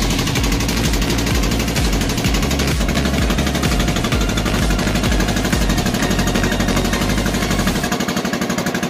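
A wooden fishing boat's engine running under way with a rapid, even putter. The deep rumble drops away near the end.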